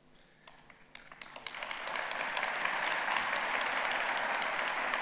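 Audience applauding: a few scattered claps from about half a second in swell into full, steady applause by about two seconds in.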